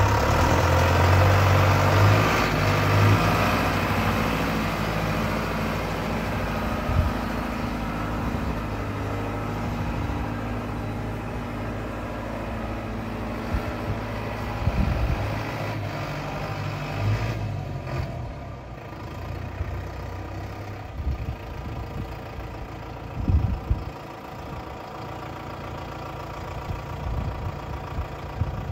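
Valtra M120 tractor's diesel engine running steadily, loudest in the first few seconds and then getting gradually quieter as it settles toward idle, with a few short low knocks along the way.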